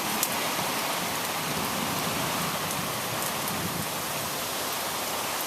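Steady rain falling on surfaces, an even, constant hiss of rainfall during a thunderstorm.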